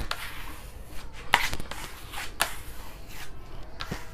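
Flexible plastic spatula scraping decorative wall plaster onto a wall in short single strokes, several in a row, the loudest about a third of the way in.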